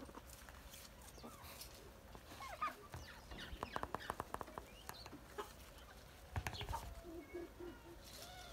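Backyard poultry (bantam chickens and young turkeys) clucking softly and giving short calls, faint overall. A quick run of clicks comes about three and a half seconds in.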